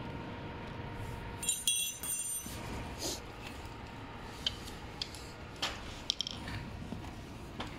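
Metal hand tools and small scooter parts clinking and tapping: a quick run of ringing metallic clinks about a second and a half in, then scattered light clicks and taps as the parts are handled.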